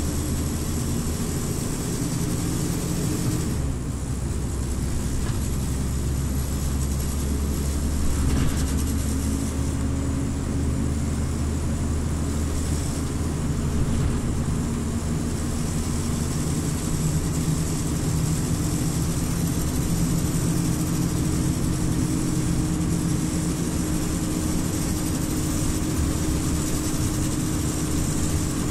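Scania OmniLink city bus engine running while the bus is under way, a steady low drone whose pitch shifts up and down as it goes.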